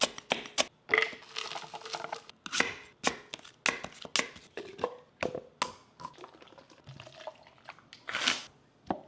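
Chef's knife chopping garlic on a wooden cutting board, a quick run of sharp knocks, then knife cuts through apple with scattered knocks on the board. Near the end, the foil seal is peeled off a plastic tub of gochujang with a short tearing sound.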